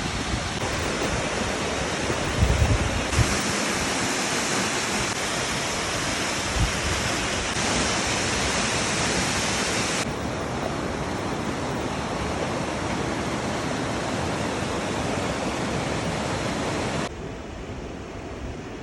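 Mountain stream rushing steadily over rocks, a dense, even roar of water. Its level and brightness jump abruptly a few times and drop lower near the end.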